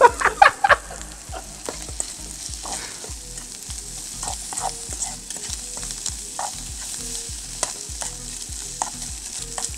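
Chopped meat and peppers sizzling as they fry in a pan on a portable gas camping stove, with a steady hiss and irregular clicks and scrapes of a fork stirring against the pan.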